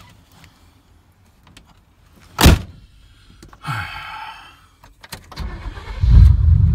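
A vehicle door slams shut about two and a half seconds in; near the end the engine cranks, catches and settles into a loud, steady run.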